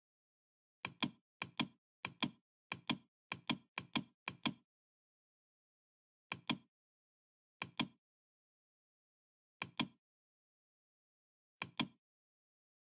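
Computer mouse button clicking, each click a quick pair of sharp snaps. There is a run of seven clicks about every half second, then four more spaced a second or two apart.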